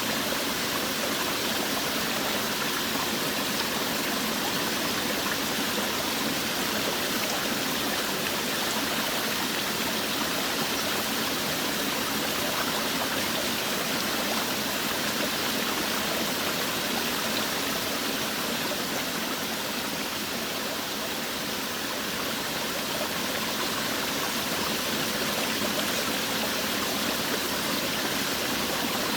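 Forest waterfall: water falling and rushing with a steady, even hiss.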